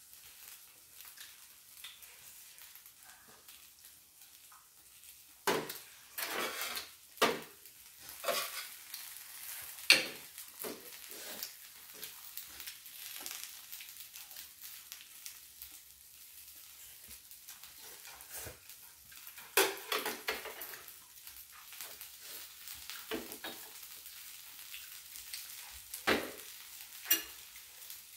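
Eating at a table: scattered sharp clicks and scrapes of chopsticks on a plate and an electric griddle, with chewing, over a faint steady sizzle from the griddle.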